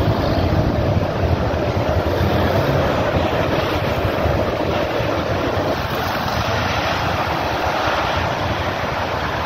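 Steady rushing noise of wind buffeting the microphone, with an unsteady low rumble.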